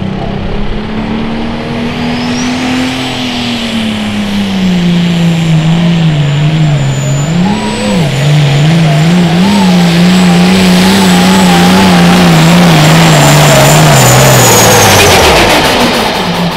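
Turbocharged diesel engine of a Case IH Limited Pro Stock pulling tractor running flat out under load during a pull, with a high turbo whistle over it. The engine note climbs, sags as the sled bears down, wavers, and then falls away near the end as the pull finishes and the engine is throttled back.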